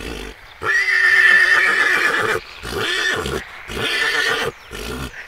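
Fighting stallions calling. One long, loud, high call starts about a second in and holds steady for nearly two seconds, followed by shorter calls about once a second.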